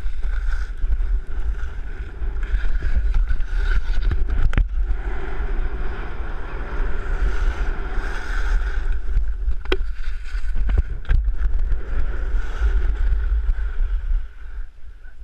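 Wind buffeting an action camera's microphone during a downhill ski run, with skis scraping over packed snow. There are a few sharp knocks partway through.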